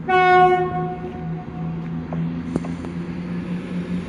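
ScotRail Class 170 Turbostar diesel multiple unit sounding a short horn blast on one pitch as it approaches, loud at first and dying away within about a second and a half. Under it the train's diesel engines run with a steady hum, with a few sharp clicks and a faint high whine starting a couple of seconds in.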